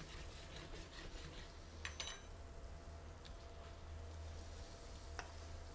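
Semi-wholegrain Vialone Nano rice toasting in butter and oil in a stainless steel pan, a faint sizzle as a wooden spoon stirs it, with a few light clicks.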